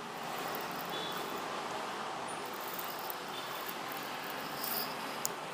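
Steady road and engine noise of a car, heard from inside the cabin.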